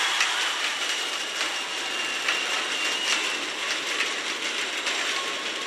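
Indoor badminton arena crowd between rallies: a dense, steady din of cheering and clapping, with many sharp rattling clicks. A thin high steady tone runs through the first three seconds or so.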